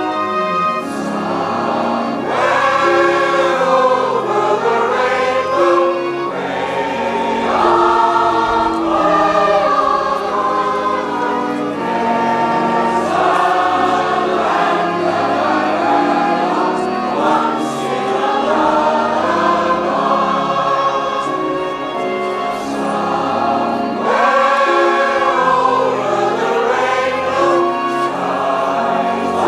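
A mixed choir of men and women singing a song together, with instrumental accompaniment holding steady low notes underneath.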